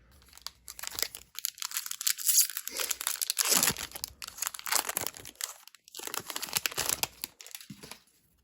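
Plastic wrapper of a Panini Prizm basketball card pack being crinkled and torn open, a dense crackling that comes and goes in spells.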